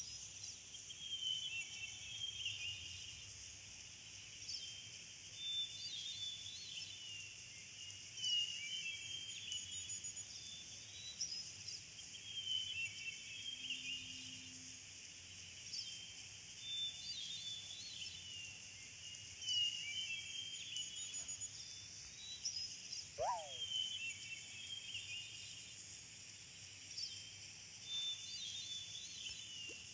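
Faint nature-ambience soundtrack: birds chirping in short repeated phrases over a steady high insect-like hiss, the same pattern coming round about every eleven seconds like a loop. A single brief whistled glide sounds about 23 seconds in.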